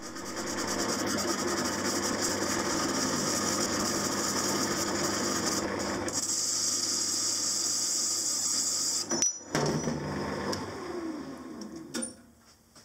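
Metal lathe turning a cast-iron flywheel: the spindle runs steadily with the gritty hiss of the tool cutting the iron. About nine seconds in it breaks off sharply. The lathe then runs on and winds down, its pitch falling as the spindle slows to a stop near the end.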